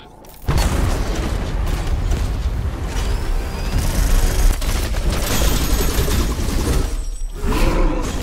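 Action soundtrack of an animated sci-fi short: music under heavy booms and mechanical effects. The dense mix starts suddenly about half a second in and drops away briefly about seven seconds in.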